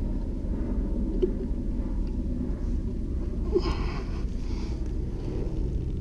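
A short squeak and scrape of an ABS fitting being pushed onto cement-swabbed 4-inch ABS sewer pipe, about three and a half seconds in. Under it runs a steady low rumble.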